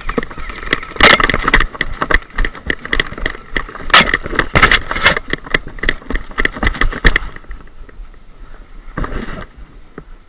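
Running footsteps and gear clatter heard close on a head-mounted camera as the wearer sprints through woodland undergrowth, an uneven stream of thuds and rattles, the heaviest about one and four seconds in. The clatter stops when he reaches cover, and a short scuffle follows near the end.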